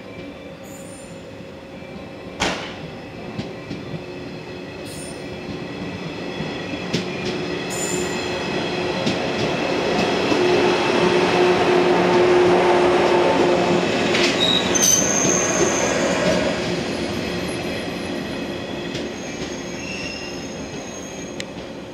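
Electric multiple unit (Okayama depot set B14) pulling along the platform, the rumble of wheels on rail building to a peak about halfway through and then fading as it slows. A sharp click comes early on the approach, and short high wheel and brake squeals sound in the second half.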